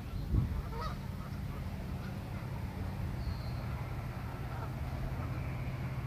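A Canada goose honks once about a second in, over a steady low rumble. A faint high chirp comes near the middle.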